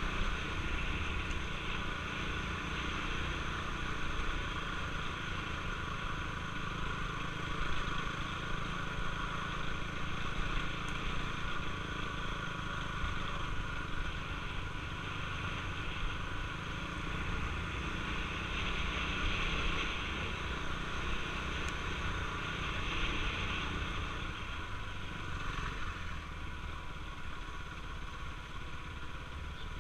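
KTM Duke 390's single-cylinder engine running steadily as the bike is ridden over a rough dirt track, with no marked revving.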